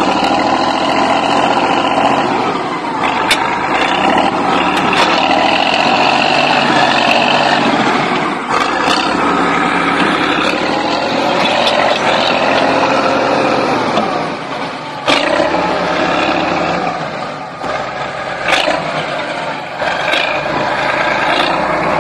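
Bulldozer's diesel engine running hard, its pitch rising and falling as it revs, with several sharp knocks along the way.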